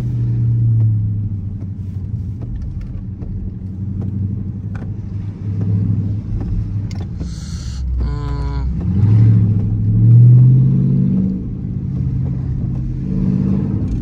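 Dodge Charger R/T's 5.7-litre Hemi V8 running at low speed, heard from inside the cabin. Its drone rises in pitch as the car accelerates about nine seconds in, eases back, and climbs again near the end.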